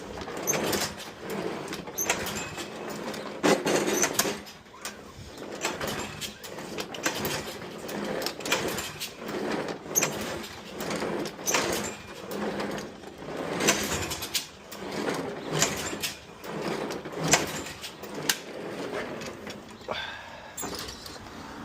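Craftsman lawn mower's recoil starter pulled again and again, a rasping rope pull and engine turnover every second or two, about a dozen times, without the engine catching. The owner suspects the engine is losing compression, perhaps through a bad head gasket.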